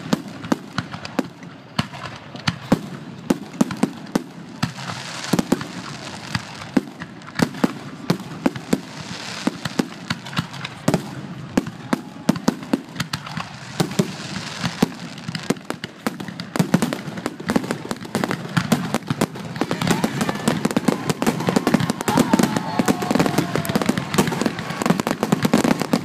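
Aerial fireworks shells bursting one after another, a dense run of sharp bangs and pops that grows denser and louder in the last several seconds.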